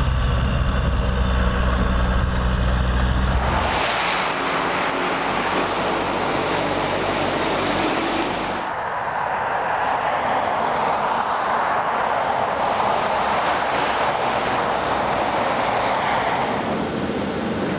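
A diesel truck engine idling with a steady low hum. About four seconds in, the sound switches abruptly to the steady rushing noise of a semi-truck driving on a highway, and it shifts again around nine seconds in.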